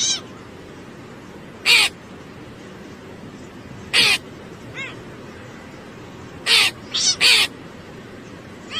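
An animal giving short, harsh calls, about six of them, spaced a second or two apart, with three in quick succession near the end.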